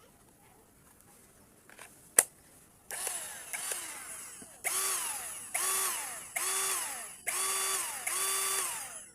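Taffware 8-inch mini chainsaw running in short bursts: a click, then its motor whirring up and winding down again about seven times, in pulls of roughly a second each.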